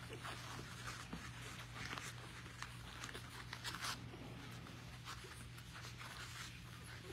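Faint scratchy rustling and scuffling of four-week-old puppies moving about on their bedding, in short irregular bursts over a steady low hum.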